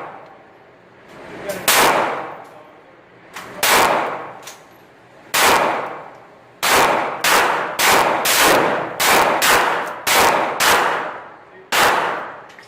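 A 9mm semi-automatic pistol firing a string of about a dozen shots, the first few about two seconds apart, then quicker, about two a second, each with a short ringing echo.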